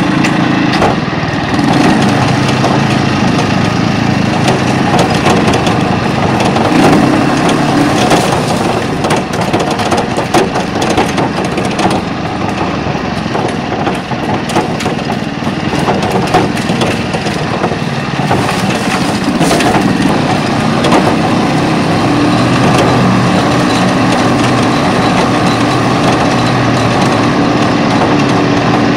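Pasquali SB30 two-wheel tractor's engine running steadily under way. A dense clatter of sharp knocks and cracks runs through the middle stretch of the drive, then thins out.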